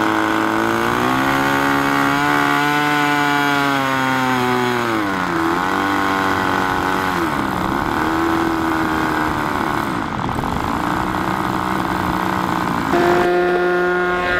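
Small fuel-burning model-aircraft engine running, its pitch rising and falling as the revs go up and down. Near the end it changes suddenly to a steadier, higher and louder running.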